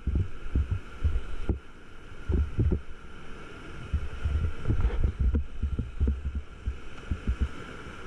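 Whitewater rapid buffeting an inflatable raft: irregular, dull low thumps and rumble as waves slap against the boat, several times a second.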